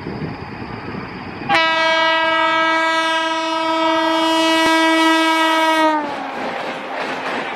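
Electric locomotive's horn sounding one long blast of about four seconds. It starts suddenly about a second and a half in and sags in pitch as it cuts off. Under it is the rushing noise of the passing train, which goes on after the horn stops.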